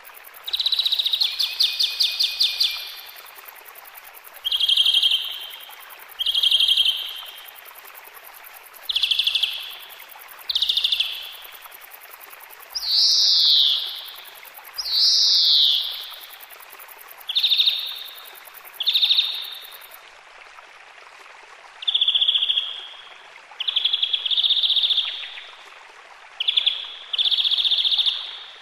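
A bird calling over and over: about a dozen rapidly pulsed calls, each about a second long and spaced a second or two apart. Two calls in the middle sweep downward in pitch, and the first is the longest, at about two seconds.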